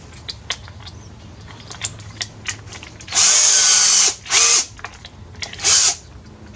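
Electric drill run in three short trigger bursts, the motor spinning up quickly each time: a one-second run about three seconds in, then two brief blips. Light clicks of handling come before.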